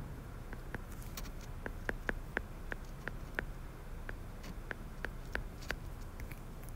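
A stylus tapping and clicking on a tablet's glass screen while handwriting words: a quick, irregular run of light ticks, a few to several a second.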